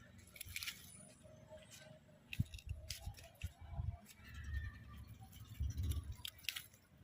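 Faint rustling of stinging nettle leaves and stems being picked by gloved hands, with a scatter of light crackles and snaps.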